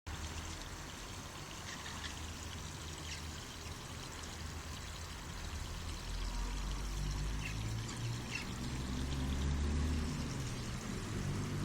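Water pouring steadily in a continuous stream, with a low hum joining about halfway through.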